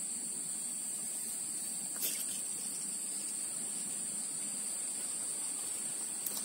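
Steady high-pitched chirring of insects, unbroken throughout, with a single faint click about two seconds in.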